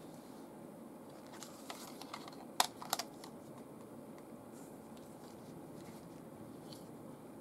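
Plastic clicks and taps from handling a Sony FDR-AX55 camcorder while a shotgun microphone is fitted to it: a few light clicks from about a second and a half in, a sharp click near the middle, then a quick pair just after. Under them runs a faint steady hiss.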